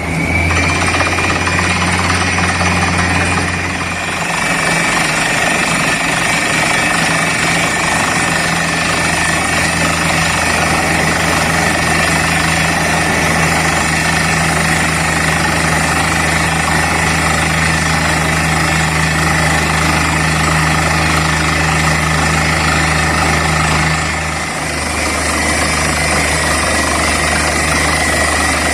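Borewell drilling rig at work: its engines and air compressor run loud and steady, with a hard, rattling drilling noise over them. The noise eases briefly twice, about four seconds in and again near the end.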